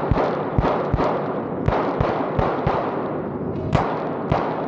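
Pistol shots fired in an irregular string, about nine in under five seconds, each ringing out briefly. This is a shooter working through a timed action-pistol course of fire.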